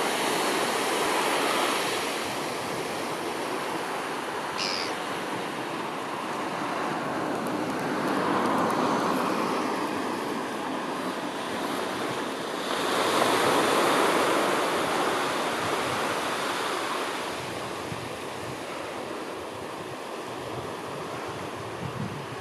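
Steady rush of surf and wind, swelling louder about eight seconds in and again around thirteen seconds.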